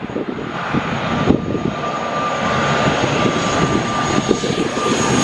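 Twin-turboprop airliner on final approach coming in low toward the listener: a steady high whine over a dense engine and propeller rush that grows slowly louder.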